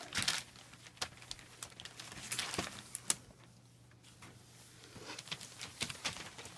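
German Shepherd puppies scuffling and tugging at play: irregular scratchy crinkling and clicking, thinning out briefly in the middle, over a faint steady low hum.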